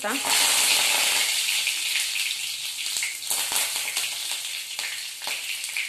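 Fresh curry leaves hitting hot oil with mustard seeds and cumin in a steel kadhai: a loud sizzle that flares right at the start and dies down over the next few seconds, with scattered pops and crackles.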